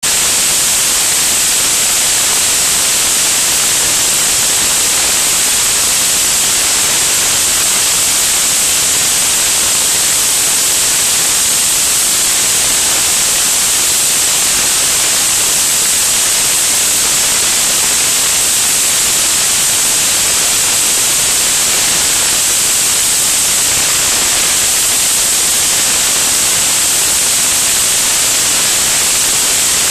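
Steady, loud rush of wind over a camera mounted outside under an aircraft's wing in flight: an even, high hiss with no engine note standing out.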